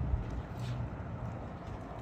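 Wind buffeting the microphone as a low, uneven rumble, with one faint click about two-thirds of a second in.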